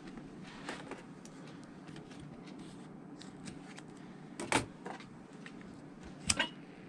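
Scissors snipping the waxed stitching thread off a hand-sewn boot welt, one sharp snip about four and a half seconds in, then a disposable lighter struck with a quick double click near the end, amid small handling sounds.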